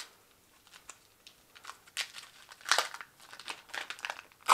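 Candy packaging being crinkled and torn open by hand: irregular rustling and crackling, sparse at first and busier and louder from about two seconds in.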